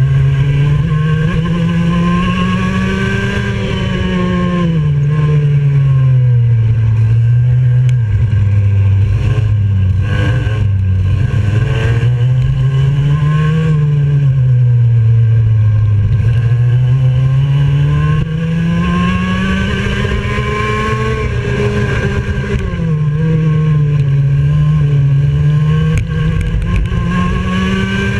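IAME X30 125cc single-cylinder two-stroke kart engine at racing speed, heard onboard: its note climbs as the kart accelerates and drops as it slows for corners, over and over.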